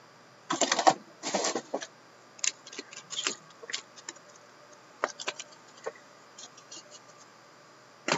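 Cardboard card box and foil trading-card packs being handled: two quick rustling scrapes in the first two seconds, then scattered light clicks and taps.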